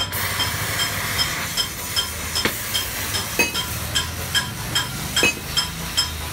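Arc welding on a steel-tube motorcycle luggage carrier: a steady hiss of the arc that starts at once and stops near the end, with a few sharp clicks and a regular light ticking about two or three times a second.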